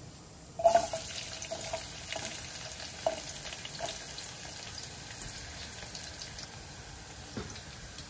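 Chopped red onions dropped into hot cooking oil in a pot, sizzling sharply as they hit about half a second in, then settling into a steady crackling sizzle.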